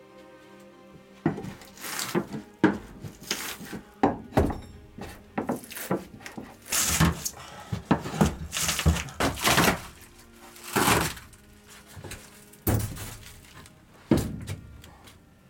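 Steel pry bar levering at pine wall and ceiling boards: a run of irregular wooden knocks, cracks and creaks as the boards are pried loose. It starts about a second in and goes on in uneven bursts.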